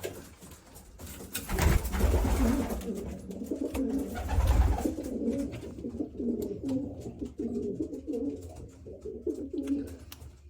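Pigeons cooing over and over in a loft, with a loud low rumbling bump about two seconds in and another about four and a half seconds in, and light clicks later on.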